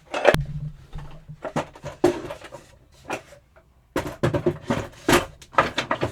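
A run of wooden knocks and clunks as things are moved and set down in a tool chest, with a short pause just past the middle.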